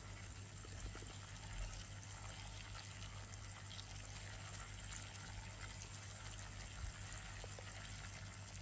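Faint, steady sizzling from a pot of palm oil, onions and tinned tomatoes cooking, over a steady low hum.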